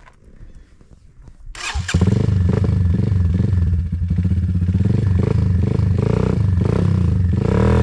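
Dirt bike engine, quiet at first, comes in suddenly about a second and a half in and then runs steadily at low revs.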